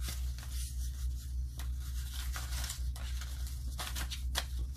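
Paper banknotes rustling and flicking as a stack of US dollar bills is shuffled into order by hand, in irregular crisp strokes over a steady low hum.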